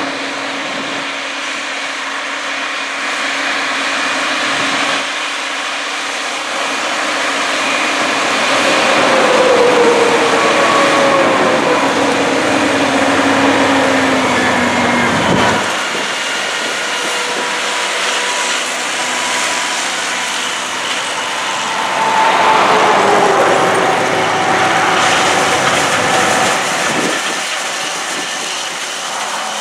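Ford FW-60 four-wheel-drive tractor's diesel engine running under load while pulling a grain drill through the field. Its engine note falls as it passes by, twice.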